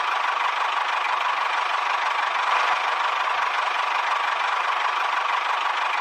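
Small electric motor and gears of a toy model tractor running steadily: an even buzz with a faint whine in it.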